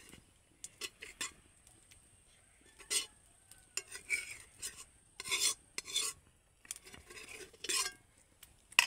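Metal spoon stirring and scraping through thick, wet khichuri in a metal pot, in a run of irregular scrapes with a sharp clink against the pot near the end.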